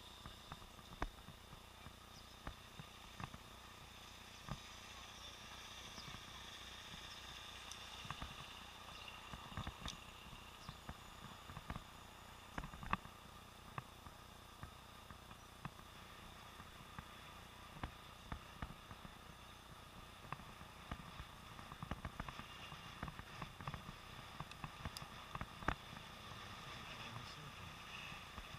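Faint, muffled city traffic heard from inside a sealed waterproof camera housing on a cyclist's helmet, with frequent sharp clicks and knocks from the housing being jostled on the ride. The knocks come irregularly and grow busier in the second half.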